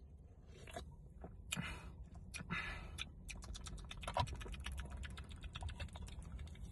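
A person drinking Mountain Dew: a few short slurping sips, then a quick run of small clicks and crackles of mouth and swallowing sounds.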